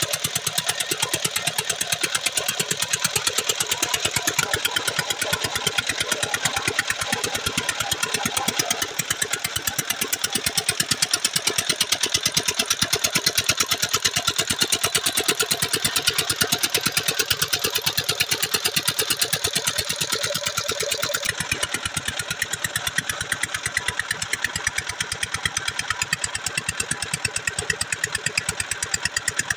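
Single-cylinder Peter stationary diesel engine running steadily with a rapid, even firing beat as it drives a belted centrifugal irrigation pump, with water gushing and splashing from the outlet pipe into a tank. The splashing hiss drops a little about two-thirds of the way through while the engine beat carries on.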